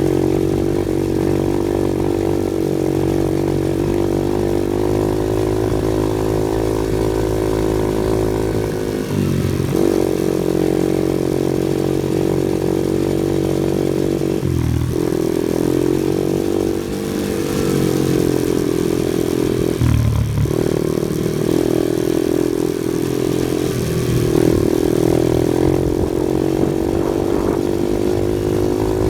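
Off-road vehicle engine running steadily under load. The engine note drops and picks up again briefly about 9, 15 and 20 seconds in, as the throttle is eased and reapplied or gears change.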